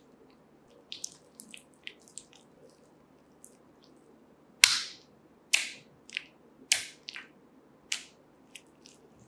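Hand slapping and smoothing soft, wet reclaimed clay spread on plaster batts: small squelching clicks at first, then a run of about six sharp wet slaps in the second half, the first the loudest. The slurry is being patted flat so the plaster can draw the water out and dry it.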